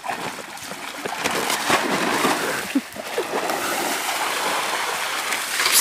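Water sloshing and splashing from a large black plastic garbage bag as it is lifted and handled.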